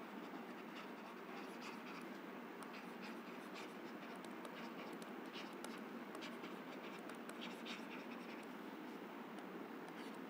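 Faint scratching of a stylus writing by hand, in many short irregular strokes, over a steady background hiss.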